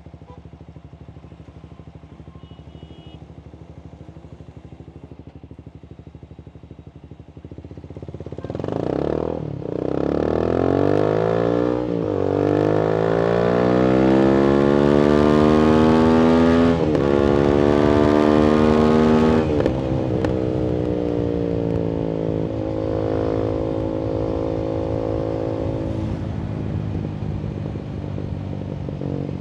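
Voge 300AC motorcycle with a reflashed ECU and free-flowing full-system exhaust idling. About eight seconds in it pulls away hard, its pitch climbing through the gears with a dip at each of three upshifts. About twenty seconds in it comes off the throttle and runs on at a lower, steadier pitch.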